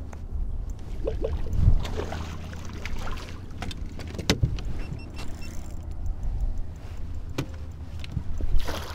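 Fishing boat on open water: a steady low rumble of wind and water, with a few sharp knocks on the boat's deck as a landing net is grabbed and handled. The loudest knock comes about four seconds in, and a second one near the end.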